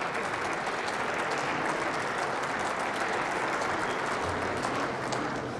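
Steady applause from a group of seated members of parliament, thinning out near the end.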